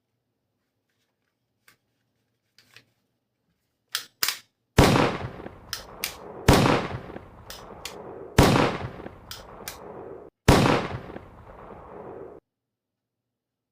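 Toy gun's gunshot sound: after a few light clicks of handling, four loud shots go off about two seconds apart, each followed by a long fading echo, and the last cuts off suddenly.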